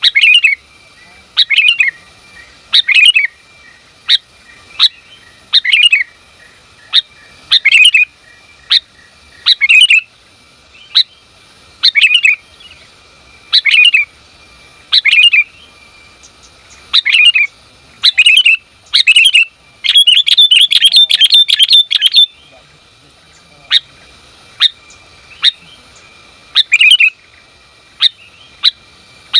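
Female sooty-headed bulbul (kutilang) calling to a male: short, sharp notes repeated every second or two, with a quick chattering run of notes about twenty seconds in.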